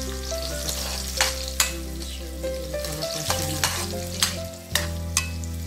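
Onion, garlic and tomato sizzling in hot palm oil in an aluminium wok, stirred with a metal spatula that scrapes and clanks against the pan about seven times.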